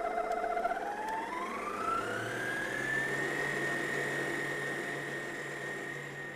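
Edison electric stand mixer motor running as it kneads dough, its whine rising smoothly in pitch for about two seconds as the speed is turned up, then holding steady at the higher speed with a low hum underneath.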